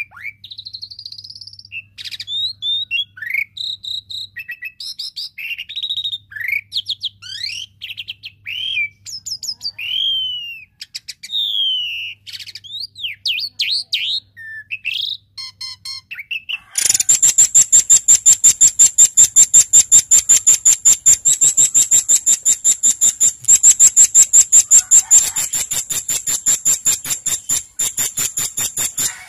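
Recorded songbird calls used as masteran tutor song: a run of varied high chirps, whistles and sweeping notes. Just past halfway it gives way to a louder, fast, high rattle of sharp notes repeated several times a second.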